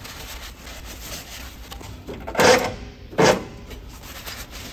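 Paper shop towel rubbing and wiping over a cast-iron engine block and into its open cylinder bores, mopping up dirty penetrating oil from the piston tops. There are two louder wiping strokes a little past the middle.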